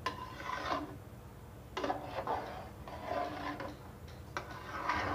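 Metal spatula scraping and stirring through thin spinach gravy in a cooking pot as water is mixed in, in three spells of about a second or two each.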